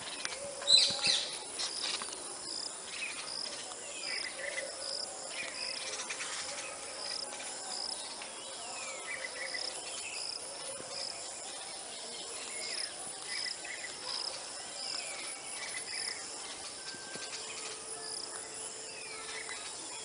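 Insects chirping in a steady high pulse, about three chirps every two seconds, with short downward-sliding bird chirps scattered over it and one louder, sharper bird call about a second in.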